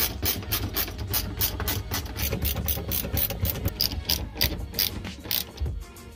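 Handbrake lever of a Nissan 240SX (S13) being worked, its ratchet pawl clicking fast, about five clicks a second, until it stops near the end. This is the new handbrake's locking ratchet engaging.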